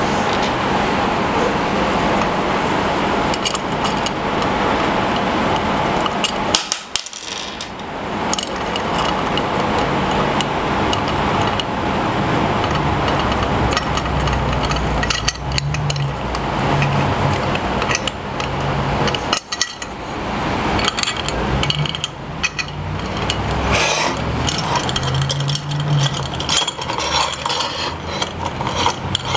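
Small metal and plastic parts clicking and clattering as they are handled and set down on a router table top, over a steady background hiss.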